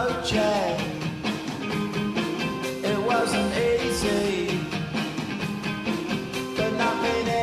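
Rock song with singing, guitar and a steady beat, played as a hockey goal song.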